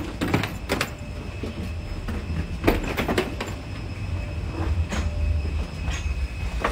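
Steady low rumble with scattered sharp knocks and clatter, like the inside of a vehicle or transit car; a faint steady whine sits above it.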